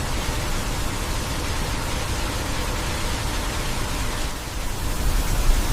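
Steady rushing of falling water from a waterfall, an even noise across all pitches with a heavy low rumble.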